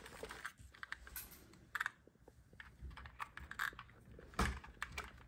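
Small plastic clicks and taps as an RC car's battery pack and connector are handled and pressed into its plastic battery compartment, with one louder knock about four and a half seconds in.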